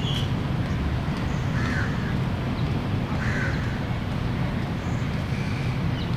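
Two short, harsh bird calls about a second and a half apart, over a steady low background rumble.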